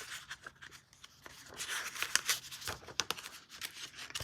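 Paper rustling with light taps and clicks as the pages of a picture book are handled and turned.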